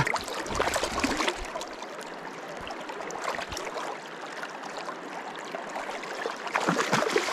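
River water running steadily past a wading angler, an even rush of current with a few light splashes.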